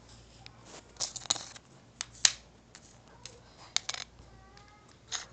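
A handful of short, sharp clicks and taps of Beyblade parts, a metal wheel and a plastic clear wheel, being handled on a wooden table; the loudest comes about two seconds in.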